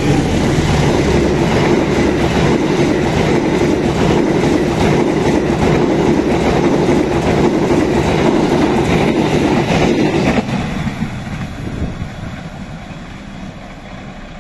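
A passenger train of stainless-steel new-generation coaches passing close by at speed, its wheels rumbling and clacking along the rails. The noise drops suddenly about ten seconds in as the last coach goes by, then fades as the train moves away.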